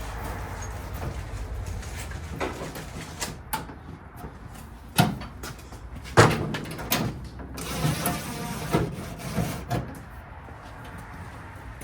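Scattered knocks and clicks of hand work on a car door's interior fittings, with sharper knocks about five, six and seven seconds in.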